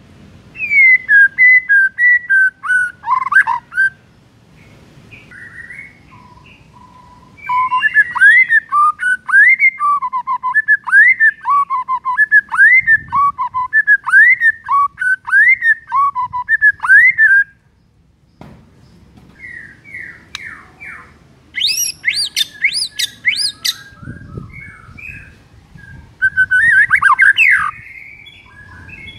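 White-rumped shama singing: loud, clear whistled phrases separated by short pauses. The longest phrase is a run of repeated rising-and-falling whistles, about two a second. About two-thirds through comes a brief burst of very high, rapid notes, and a last loud flurry follows near the end.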